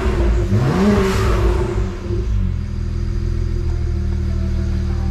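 BMW N54 twin-turbo inline-six revved once, the pitch rising in the first second and dropping back about two seconds in to a steady idle. It idles smoothly, the misfire gone after the new injectors were fitted and coded.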